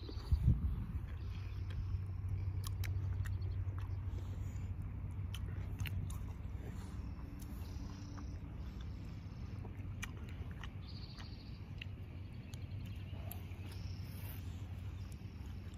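A child biting and chewing juicy watermelon: scattered small wet clicks and crunches over a steady low rumble.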